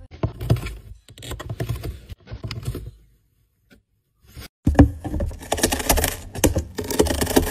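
A cat's claws scratching and tearing at a cardboard box: quick runs of scratchy clicks and scraping, a short silence about three seconds in, then a louder, denser burst of scratching.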